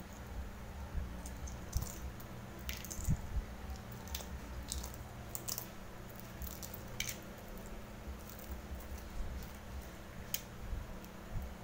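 Boiled duck egg being peeled by hand: small, irregular crackles and clicks of the shell breaking and pulling off, over a low steady hum.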